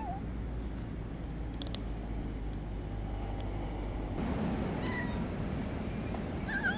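A hungry stray kitten meowing as it eats dry food: a few short, rising-and-falling meows, one at the start, a faint one past the middle and another near the end.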